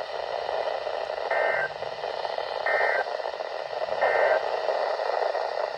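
Weather radio receiver hissing with static, broken by three short, evenly spaced bursts of two-tone SAME data warble, about a second apart: the End of Message code that closes an Emergency Alert System warning.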